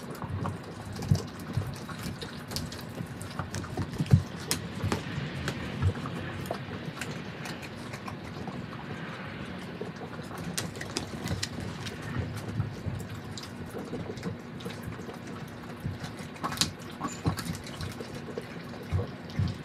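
Mastiffs chewing raw turkey bones: irregular wet chewing with bones crunching and cracking, the loudest cracks about one second and four seconds in.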